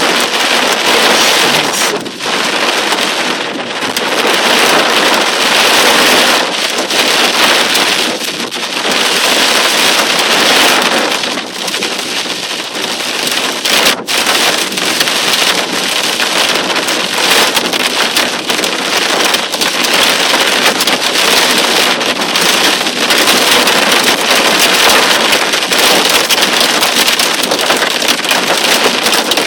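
A heavy cloudburst on the move: rain pouring down and vehicle noise blending into a loud, steady rushing hiss.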